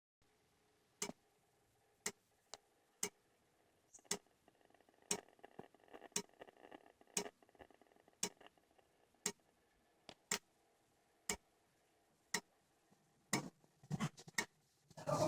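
Geiger counter ticking faintly and evenly, about one sharp click a second. Right at the end a dog starts to bark.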